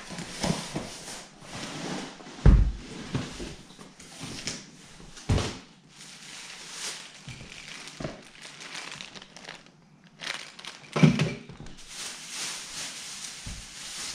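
Cardboard box and plastic packaging being handled: irregular rustling and crinkling, broken by a few dull thumps.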